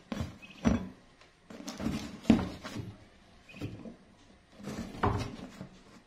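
Handling noise from a light-bulb fixture being fitted to a cardboard box: irregular knocks and rustles of a metal strap and the cardboard, the sharpest about two seconds in.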